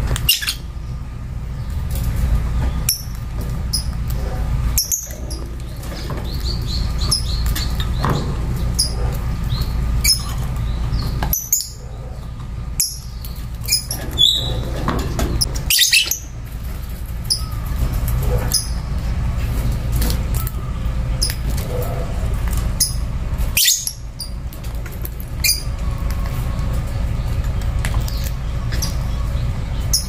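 Lovebirds giving short, high-pitched chirps and squeaks at irregular intervals, over a steady low rumble.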